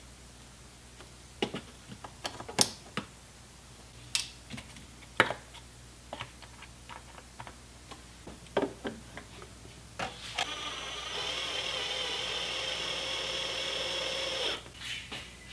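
Scattered clicks and knocks of tools and parts being handled, then, about ten seconds in, some four seconds of a steady whirring small motor that stops abruptly.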